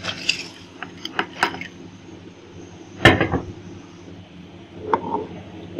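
Soaked rice tipped from a bowl into a metal pot of boiling water, with light clinks and rattles over the first second and a half. A sharp knock of a dish or utensil against the pot comes about three seconds in, and a softer one near the end.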